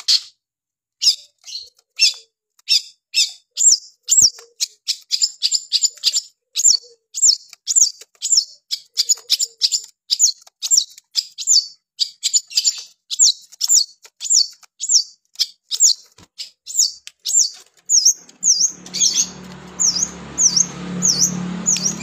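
Long-tailed shrike singing a rapid stream of short, high, sharp chirping notes, several a second. Near the end the notes slow to about two a second, each one a short dipping note, and a steady low hum comes in over the last few seconds.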